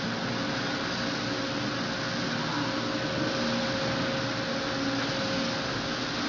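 Welding arc running with a steady hiss and a faint hum.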